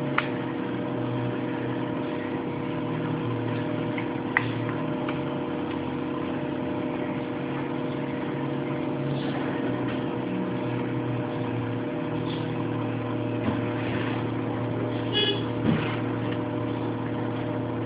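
Steady electrical and fan hum from a computer setup: several held tones over a faint hiss, with a few faint clicks.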